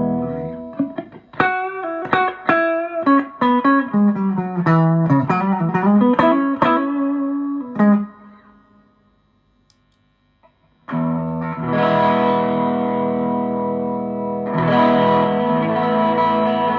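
Electric guitar played through a TC Electronic Dark Matter distortion pedal. First comes a quick run of single picked notes, then a pause of about two seconds. From about eleven seconds in, ringing chords are held.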